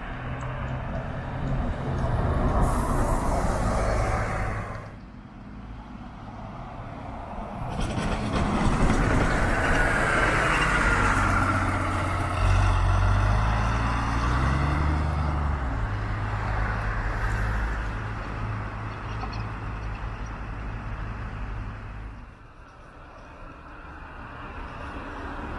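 Diesel city buses driving along a street: a low engine note over tyre and traffic noise, rising in pitch as a bus pulls away about halfway through. The sound changes abruptly twice as the scene cuts.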